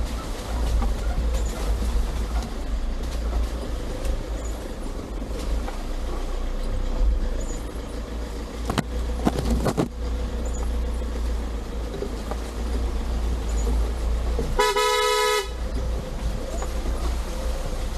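A vehicle horn gives one short toot about fifteen seconds in, over a steady low rumble. A few sharp knocks come about nine to ten seconds in.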